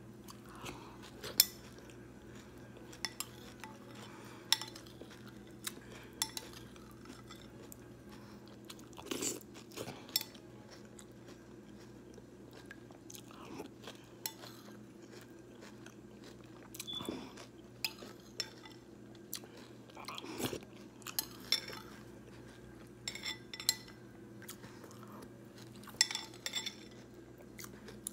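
Close-miked chewing and crunching of frosted corn flakes softened in milk, in scattered crisp crunches with pauses between mouthfuls. Now and then there is a short clink of a metal spoon against the bowl.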